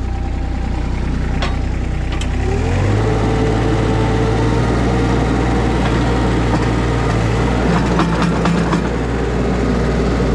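Skid steer engine running, revving up about two and a half seconds in and held at high revs as the bucket scoops dirt, with a few sharp metal clanks.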